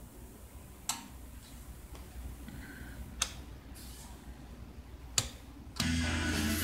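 Three sharp clicks from the front-panel switches of a Sansui 661 stereo receiver, about two seconds apart. Less than a second after the last click, music begins playing through the receiver.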